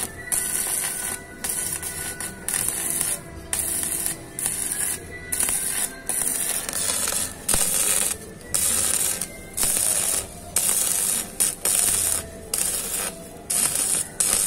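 Electric arc welding in short bursts, a crackling hiss that starts and stops roughly once a second, each burst well under a second long with brief gaps between.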